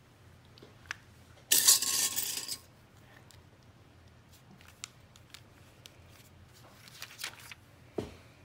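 Plastic Lego pieces rattling and clinking against a ceramic bowl as a hand rummages through them, for about a second starting a second and a half in. Scattered small clicks and rustles follow, with a short knock near the end.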